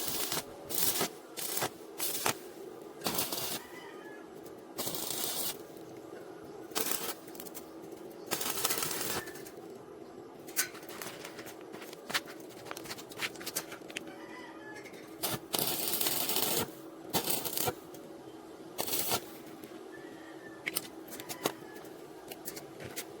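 Arc welder crackling and sputtering in irregular short runs of welding on thin square steel tube, some lasting about a second, over a steady hum.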